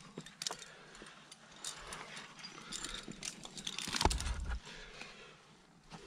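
Metal climbing gear clinking and jangling, a scatter of sharp clicks, with a louder bump about four seconds in.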